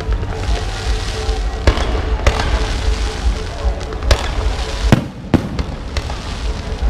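Fireworks going off: a continuous crackle over a low rumble, with sharp bangs scattered through, coming closer together in the second half.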